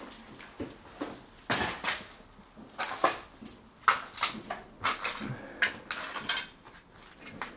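Irregular crunching and clattering of scattered debris in a wrecked kitchen, with a few clinks like crockery, heaviest about a second and a half in and again around the middle.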